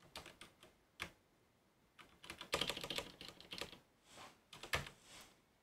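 Typing on a computer keyboard: a few scattered keystrokes, then a quicker run of keys around the middle, and a few more near the end.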